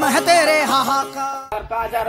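Background song with a singing voice over music. It cuts off suddenly about one and a half seconds in, giving way to outdoor background sound.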